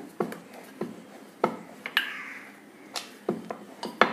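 Wooden rolling pin rolling wheat-flour dough out into a thin round on a rolling board, knocking against the board at irregular moments about twice a second, with a soft rolling swish in between.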